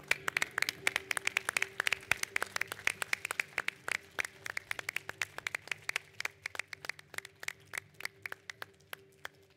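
A small crowd applauding, with many sharp separate claps; the clapping thins out near the end.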